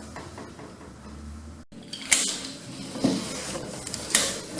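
Lift car travelling with a low steady hum, which cuts off abruptly, followed by three sharp mechanical clunks about a second apart.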